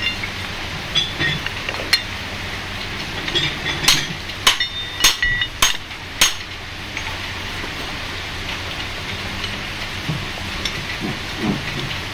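Heavy steel cane carrier chain parts knocking and clinking as a side plate is fitted over the link pins: a handful of sharp metallic knocks with a short ring, bunched between about four and six seconds in, over a steady low hum.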